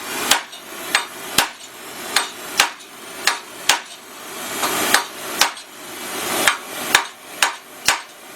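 Hammer blows bucking a red-hot steel rivet to set its head on a Willys CJ5 frame crossmember, struck one at a time at about two blows a second, each with a short metallic ring.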